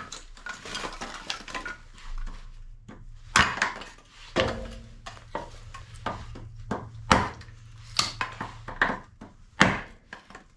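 A freshly sharpened axe chopping and splitting wood, a series of sharp chops and cracks about once a second, with the wood splitting off easily.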